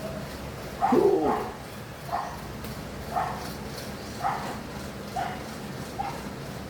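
A dog barking about once a second, six barks in all. The bark about a second in is the loudest, and the later ones grow fainter.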